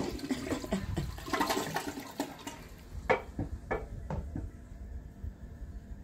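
Toilet flushing: water rushes and swirls down the bowl, easing off after about two seconds into a quieter steady hiss. Three short knocks come about three to four seconds in.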